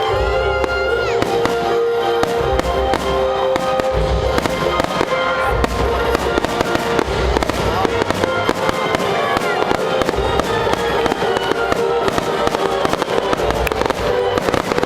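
Fireworks going off continuously, with deep booms and dense crackling, over music with long held notes.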